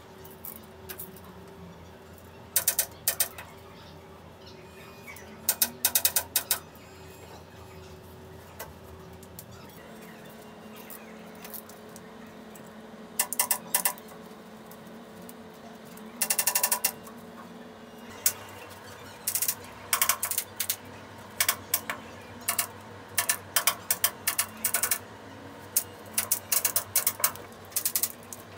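Hand staple gun firing staples to fasten the cloth onto a pool table: sharp clacks in short clusters. They come in a few scattered groups at first, then in quick succession through the last ten seconds.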